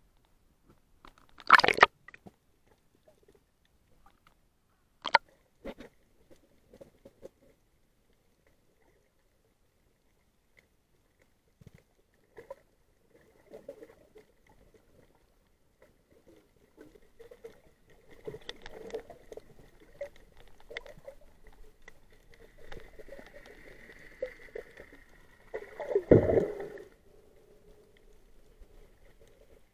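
Muffled underwater sound picked up through a waterproof action-camera housing. Two sharp knocks come in the first few seconds, then irregular bubbling and crackling that builds, with a loud burst near the end.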